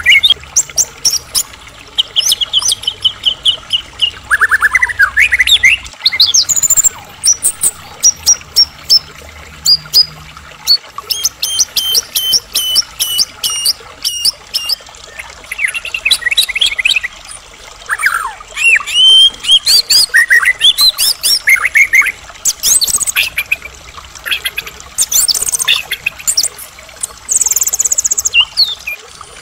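White-rumped shama (murai batu) singing loudly and continuously, a varied string of whistles, rapid trills, clicks and sweeping notes, phrase after phrase.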